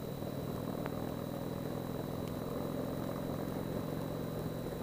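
2017 Indian Chieftain Dark Horse's air-cooled Thunder Stroke 111 V-twin running at a steady cruising speed, heard from the rider's seat as a low, even hum.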